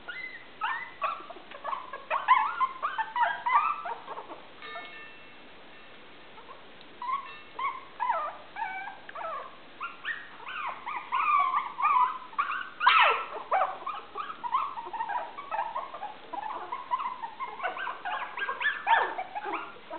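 Young Maltese puppies about three weeks old making many short, high-pitched squeaky cries in clusters, with a lull about five seconds in and one louder cry near the thirteen-second mark.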